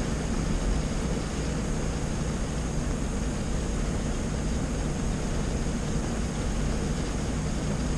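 Heavy rain falling on a car's roof and windshield, heard from inside the stopped car as a steady wash of noise over a low, even rumble.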